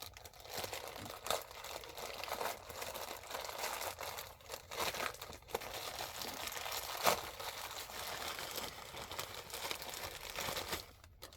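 Plastic packaging bag being handled and torn open, crinkling and crackling with many sharp little crackles. It goes quiet about half a second before the end.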